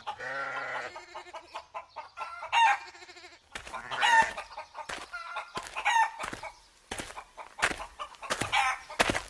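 Chickens clucking and calling in a farmyard soundscape, opening with a short falling call. Short pitched calls repeat every couple of seconds, with sharp knocks scattered between them.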